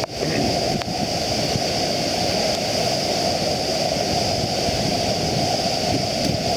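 Aunt Saras Falls in flash flood: a torrent of floodwater crashing down, a steady, dense rush of water.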